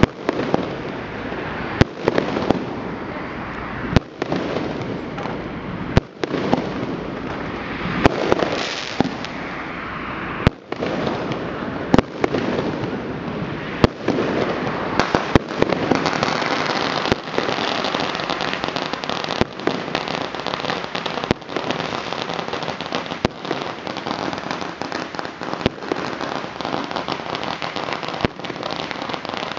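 Fireworks going off: sharp bangs, about one every two seconds at first and weaker later, over a continuous dense crackle of many fireworks and firecrackers.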